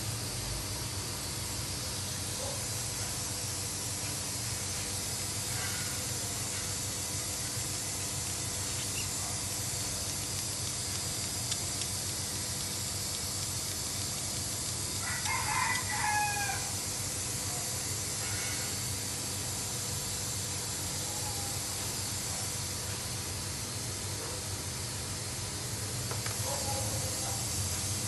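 A rooster crows once about halfway through, over a steady hiss.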